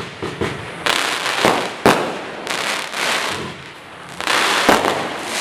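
Black Cat 'Fiesta' firework going off: sharp bangs over a crackling hiss, several bangs in the first two seconds, a brief lull, then more bangs and crackle near the end.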